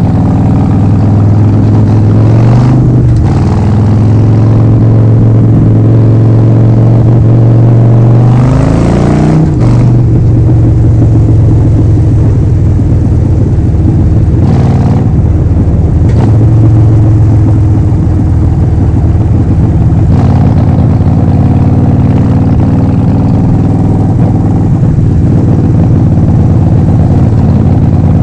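Harley-Davidson Forty-Eight XL1200X's air-cooled 1200 cc V-twin running loud through a Vance & Hines full exhaust system. The revs climb steeply about a third of the way in, then drop suddenly, and the note shifts a few more times.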